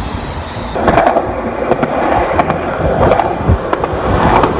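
Skateboard rolling over city pavement: a continuous wheel rumble broken by repeated sharp clicks as the wheels cross joints and cracks.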